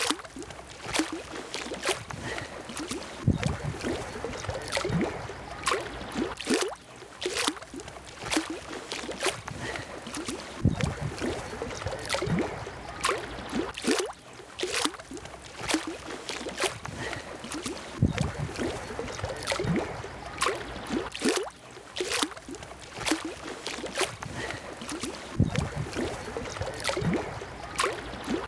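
Shallow water lapping and splashing at the shore, with many irregular small splashes and clicks.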